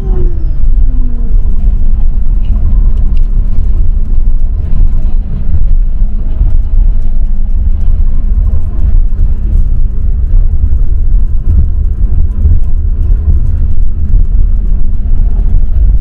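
Intercity bus running, heard from inside the passenger cabin: a steady, loud low rumble of engine and road noise with a constant hum.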